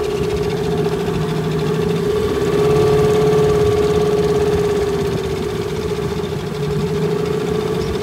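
Outboard motor running steadily with an even hum, a little louder for a couple of seconds from about two and a half seconds in.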